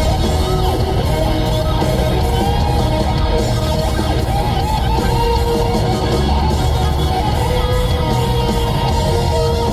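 Loud heavy metal music with electric guitar, with a long held note from about five seconds in.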